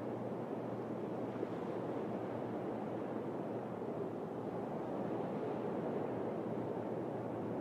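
Sea waves washing on the shore: a steady, even rushing with no separate events.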